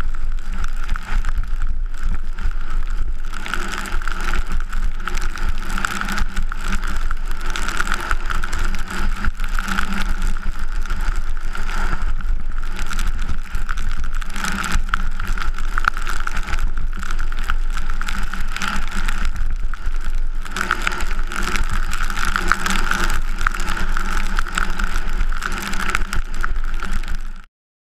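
Loud, steady rush of wind over a GoPro Hero 3 at super-G racing speed, with low buffeting on the microphone, mixed with the skis running over hard-packed snow. It cuts off suddenly near the end.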